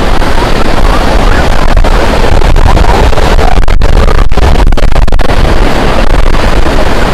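Strong wind buffeting the microphone: a loud, continuous rough rumble that covers everything else, with two brief dropouts about halfway through.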